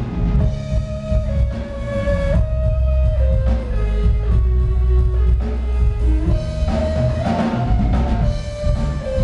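A small live band playing: a drum kit with bass drum, snare and cymbals under a deep electric bass line, with held melody notes stepping from pitch to pitch above.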